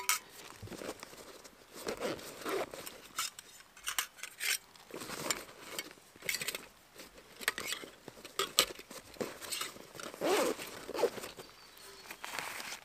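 Camp gear being packed away by hand: scattered light clicks and clinks of small metal items, with rustling of a fabric pouch.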